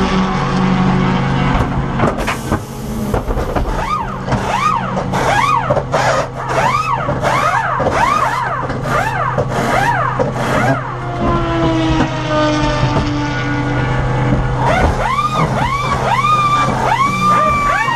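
Audi S3 race car engine idling steadily. Over it, pneumatic impact wrenches whir up and down in quick bursts, about two a second, in two runs with a short gap between: wheel nuts being spun off and on during a front-tire change.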